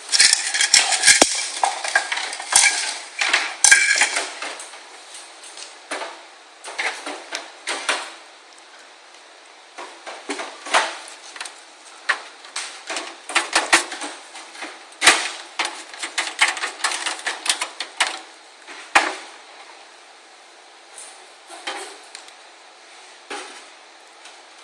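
Metal clicking, clinking and rattling of screws, a screwdriver and steel case parts as a motherboard is fastened into a PC case. It is densest for the first four seconds, with some ringing, then turns to scattered sharp clicks that thin out near the end.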